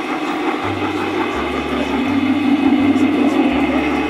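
Three-rail model trains running on the track, a steady rolling hum from their motors and wheels that swells about two seconds in as a train passes close.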